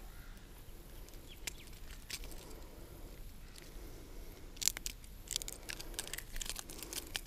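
Faint, scattered clicks and scrapes of fishing pliers and lure hooks as the hooks of a hard-bodied diving lure are worked out of a small flathead's mouth, with a quick run of clicks about two-thirds of the way through.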